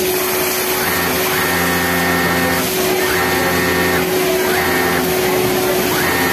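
Yamato industrial flatlock sewing machine stitching a t-shirt hem in short runs, starting and stopping four times, each run one to two seconds long. A steady hum sits underneath.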